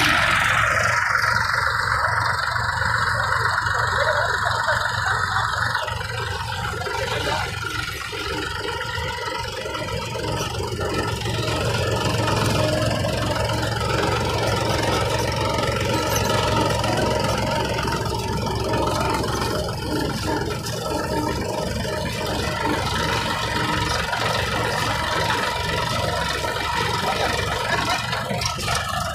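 Two small three-cylinder diesel tractor engines, a Mahindra 275 DI XP Plus and a Massey Ferguson 1035 DI, running steadily at about 1000 rpm while the tractors are driven in reverse. A higher whine fades out over the first several seconds.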